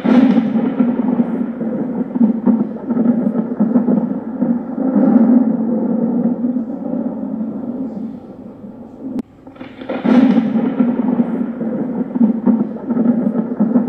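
Loud outro sound effect laid over the end cards: a sudden hit at the start and another about ten seconds in, over a steady low drone with a noisy wash above it.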